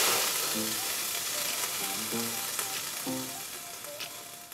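Water sizzling and hissing on a preheated stainless-steel wok. It starts suddenly and loudly, then slowly fades as the drops bead up on the hot metal, the test that shows whether the wok is hot enough to cook in.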